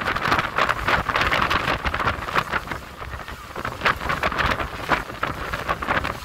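Wind buffeting the phone's microphone in irregular gusts on a moving harbour ferry, over the ferry's low steady rumble.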